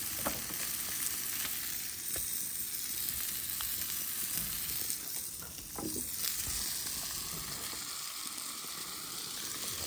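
Steaks sizzling while cooking over a campfire: a steady frying hiss with scattered crackles and pops.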